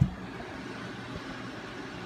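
A single knock at the very start, then steady background hiss.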